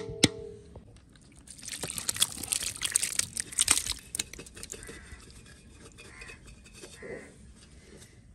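Thick chicken curry tipped out of a metal cooking pot onto a layer of rice in a large aluminium pot. A sharp metal clank rings briefly at the start, then there are about three seconds of wet scraping and sliding as the pot is emptied, fading to quieter scattered sounds.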